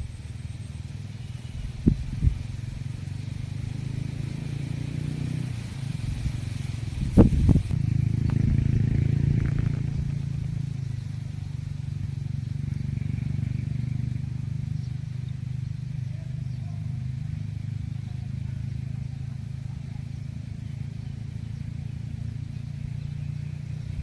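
Low, steady engine hum from a motor vehicle running nearby, swelling about eight seconds in, with a couple of sharp knocks about two and seven seconds in.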